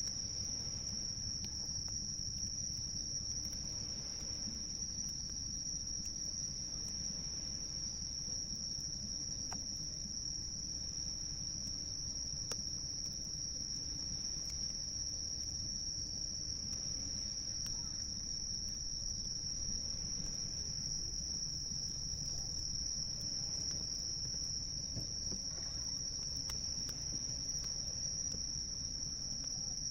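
A continuous chorus of crickets, an unbroken high trill, over a low steady wash of waves, with an occasional faint crackle from a wood campfire.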